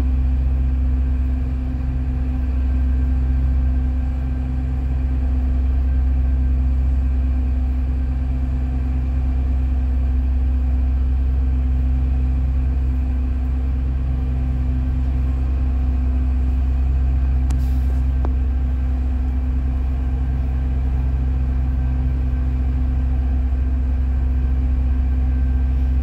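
A school bus's rear-mounted CNG engine running steadily on fast idle, heard inside the bus, while its air compressor builds brake air pressure back up after a tank was drained.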